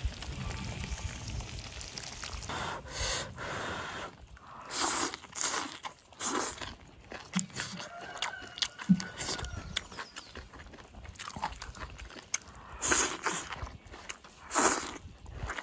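A person eating cooked houttuynia (fish mint) leaves and stems with rice: several short, loud slurps as mouthfuls are sucked in, with chewing and small clicks of the mouth between them.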